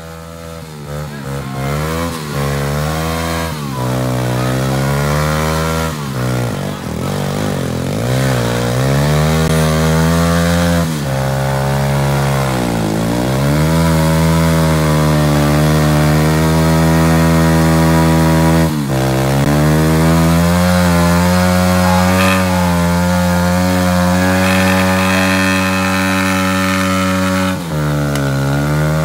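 Small pit bike engine revved hard and held high, its pitch dipping and climbing back several times, while the bike is held in place and its rear tyre spins on the pavement in a stationary burnout.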